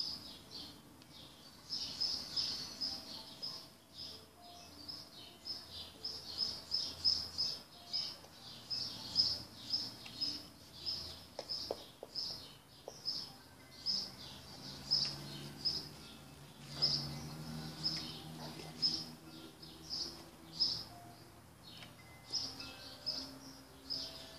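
A bird chirping over and over: short, high chirps a few times a second, continuing throughout, over faint background noise.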